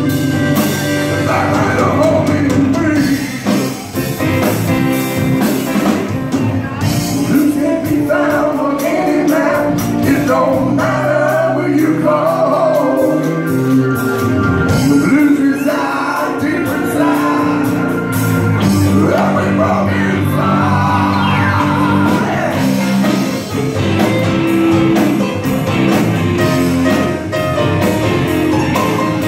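Live rock band playing electric guitar, drum kit, bass and keyboards, with a voice singing over them.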